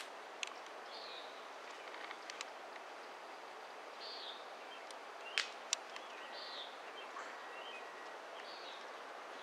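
Wood fire in a metal fire pit crackling, with a few sharp pops, the two loudest close together about five and a half seconds in, over a steady outdoor background hiss. A few short high chirps come in now and then.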